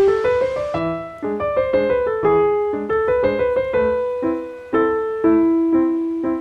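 Background piano music: a melody of single notes over soft chords, each note fading after it is struck.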